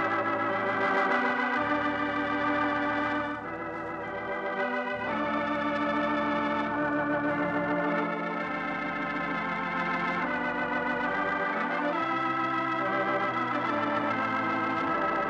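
Organ music: sustained chords with a slight vibrato, moving to a new chord every one to three seconds, as the closing music of a 1950 radio transcription.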